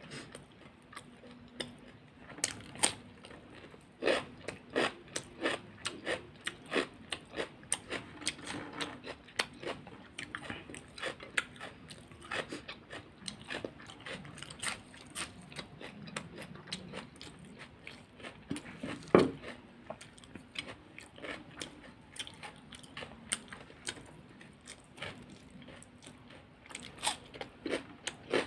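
Close-miked biting, crunching and chewing of crisp food, a steady run of sharp crunches, often several a second, with one especially loud crunch about two-thirds of the way through.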